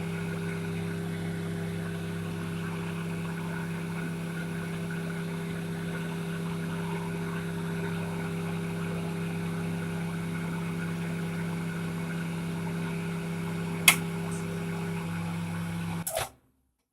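LG microwave oven running with a steady electrical hum from its transformer and fan, its shaded-pole motor freshly greased to cure a noise. A single sharp click comes about 14 seconds in, and the hum cuts off suddenly about 16 seconds in.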